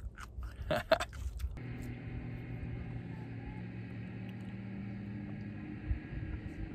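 A few short crunches and clicks, then, from about a second and a half in, a motor on the water running in a steady low drone.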